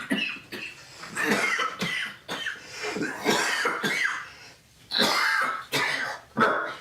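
A man coughing in a fit of repeated, harsh coughs and throat clearing, with a short lull about two-thirds of the way through before more coughs.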